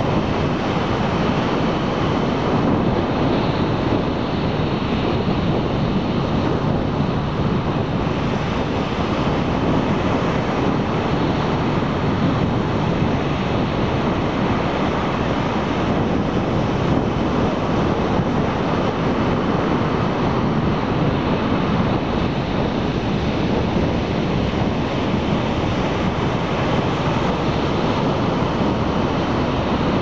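Ocean surf breaking on a sandy beach: a continuous rushing of waves at a nearly even level, with wind noise on the microphone.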